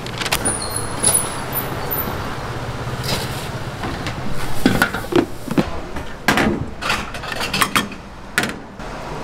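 Kitchen work sounds: a steady background hum and rush, with a run of clattering knocks of dishes and utensils between about four and a half and eight and a half seconds in.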